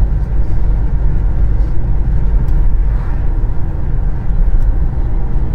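Steady low rumble of a car driving, heard inside the cabin: road and engine noise.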